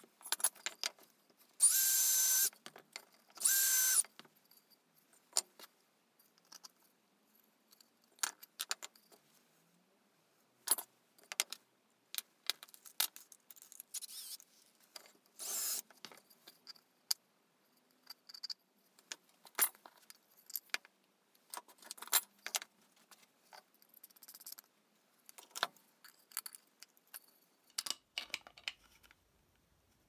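A cordless drill runs in two short bursts, each under a second. Many short clicks and taps of hand tools, screws and pine pieces being handled on a wooden workbench follow.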